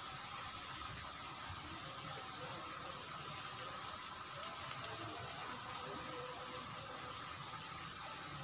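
Steady rush of shallow water flowing along a small concrete-walled irrigation ditch.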